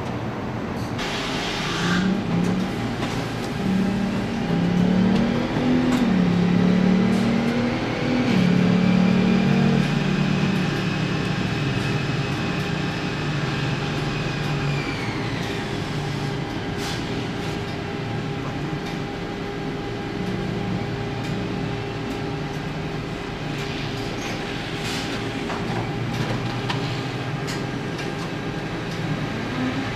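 Car assembly plant machinery running: a steady hum with a few held tones. For the first half, a low tone steps up and down in pitch while a higher whine holds and then falls away. Near the end, a whine starts rising.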